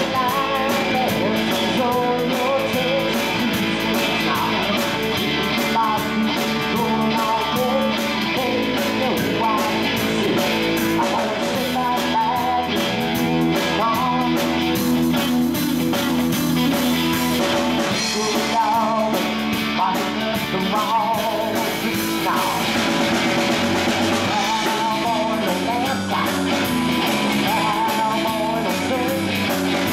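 Live rock band playing: electric guitar, electric bass and drum kit, with a singer at the mic.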